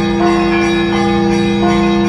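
Church bells ringing: smaller bells are struck in a steady rhythm, a new strike about every 0.7 s, over the continuous hum of larger bells that keep sounding underneath.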